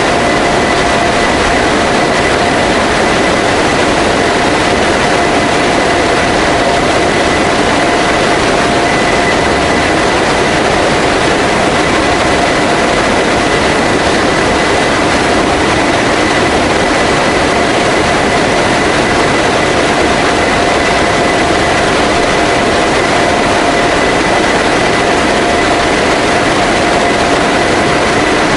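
An-12 transport's four turboprop engines and the slipstream rushing past its open cargo ramp in flight: a steady, loud rushing noise with two constant whining tones running through it, unchanging throughout.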